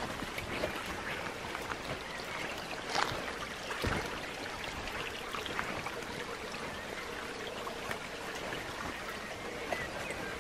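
Small shallow woodland stream trickling steadily over stones, with a couple of light knocks about three and four seconds in.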